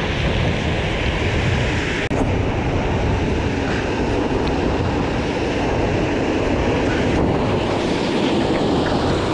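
Heavy surf breaking and churning against the rocks at the foot of a sea cliff, mixed with wind on the microphone: a loud, steady rush with a momentary break about two seconds in.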